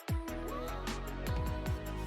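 Electronic background music with a heavy bass line, falling bass-drum hits and a steady beat of ticks.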